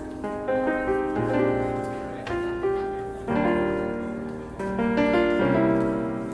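Piano music: chords struck every half second to a second and left to fade, over low held bass notes.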